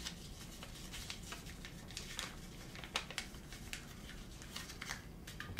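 Faint, scattered small clicks and crinkling from fingers working at the cap of a glass water bottle.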